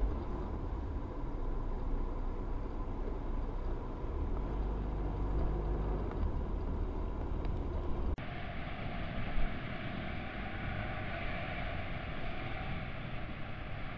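Car road and engine noise while driving, a steady low rumble inside the cabin. About eight seconds in it cuts abruptly to a different recording of city street traffic.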